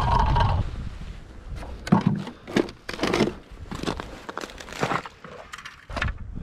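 Boots crunching through deep snow, a series of uneven steps. A loud steady rush fades out within the first second.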